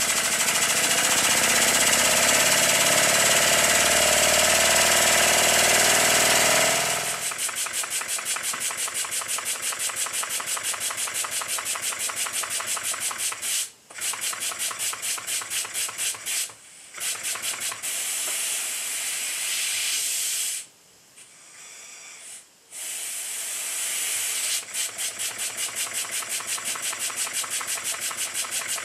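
Circa-1896 single-cylinder model steam engine running fast under test. For about the first seven seconds there is a loud hissing rush with a slowly rising tone; after that comes a rapid, even run of exhaust beats, broken by a few short dropouts.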